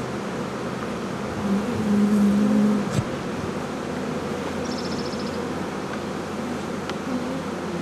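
A honey bee colony buzzing steadily around a hive just after a captured swarm was put into it. A louder, lower hum rises for about a second around two seconds in, with a sharp click near three seconds and a brief high trill near five seconds.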